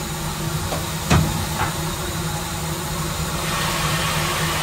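Steam locomotive cab: a steady hiss of steam over a low hum. A sharp metallic knock comes about a second in and a lighter one half a second later, and the hiss swells a little near the end.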